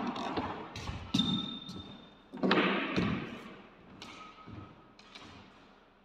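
Several heavy thuds echoing around a squash court, the loudest about two and a half seconds in, with short squeaks of court shoes on the wooden floor.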